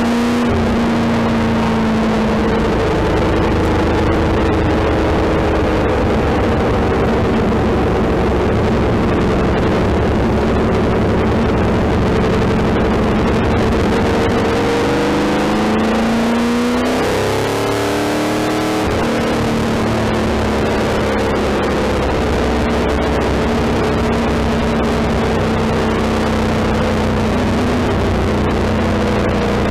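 The V8 engine of a 1972 Shadow Mk III Can-Am race car running at low, steady revs, heard from its open cockpit with wind and road noise. About halfway through, the revs rise, drop and pick up again briefly, then settle back to a steady run.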